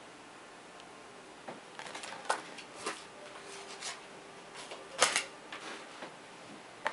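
Cardboard game cards and boards handled and set down on a table: a few scattered light clicks and taps, the loudest a quick double tap about five seconds in.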